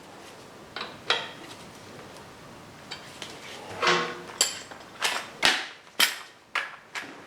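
A series of sharp knocks and clinks, about ten, most of them close together in the second half; one near the middle rings briefly.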